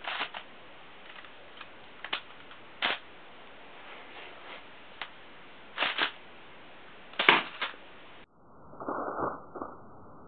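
Sharp plastic clicks and snaps from a K'nex rifle's pump and bolt action being worked and fired, about half a dozen, the loudest about seven seconds in. After about eight seconds the sound turns muffled, with a short cluster of duller clatters.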